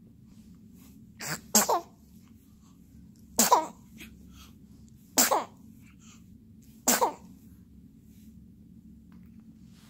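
A one-month-old baby hiccupping four times, about every one and a half to two seconds, each hiccup a sudden catch with a short squeaky voice sliding down in pitch.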